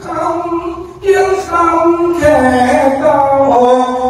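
A man singing unaccompanied into a microphone, slow long-held notes sliding between pitches in the style of a northern Thai (Lanna) lullaby. There is a short break for breath about a second in.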